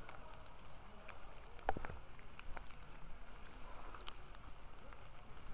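Steady rain and wind noise, with a few scattered light ticks and a louder knock about one and a half seconds in.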